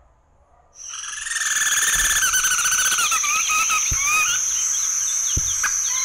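Field recording of an apical flycatcher calling, starting about a second in: a run of wavering, rippling notes, strongest in the first half, over a steady high-pitched insect drone.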